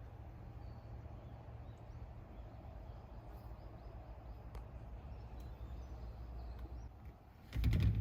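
Steady low rumble of open-air background with a few faint bird chirps. Near the end comes a louder knock and rustle, as of something being handled close by.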